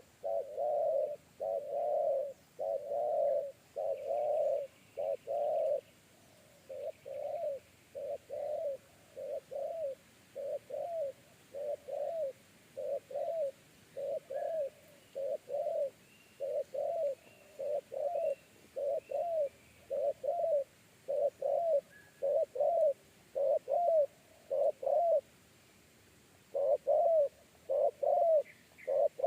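Spotted dove (tekukur) cooing: a long run of short, deep, evenly repeated coo notes. They are crowded and loudest for the first few seconds, then steady at a bit over one a second, with a brief pause near the end before they resume.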